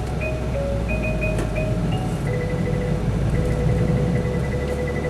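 Electronic chime playing a short melody of clear stepped notes, then a fast, even trilling beep at a fixed pitch from about two seconds in, over the steady low rumble of a vehicle's running engine.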